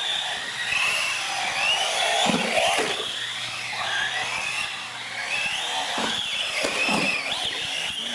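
Radio-controlled UTV model car's motor whining, its pitch rising and falling over and over with the throttle as it races around.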